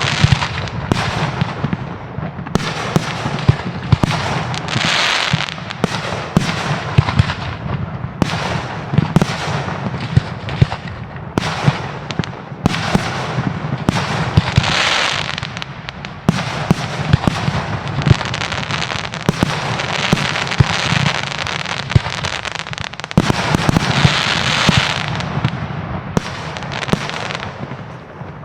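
Fireworks display: a dense, rapid run of shell bursts and sharp bangs, with three swells of crackling lasting about a second each. The barrage eases off near the end.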